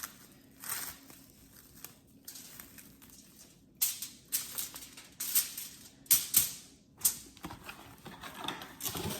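Plastic cling wrap being pulled out and smoothed over foil: a run of short crinkling rustles, most of them bunched together in the middle.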